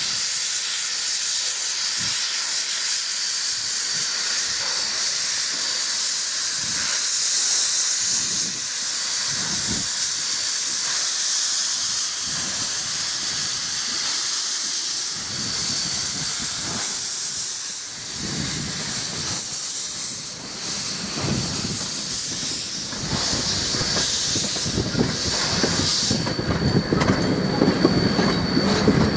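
NZR A class 4-6-2 Pacific steam locomotive A428 moving slowly, steam hissing steadily from around its cylinders with a thin high whistle in the hiss and scattered low thumps. Near the end the carriage wheels start clattering over the rail joints, louder.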